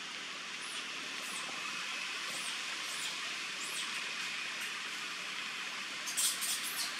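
Outdoor ambience of small birds giving short, high-pitched chirps every half second or so over a steady hiss. Near the end comes a quick flurry of sharper, louder chirps.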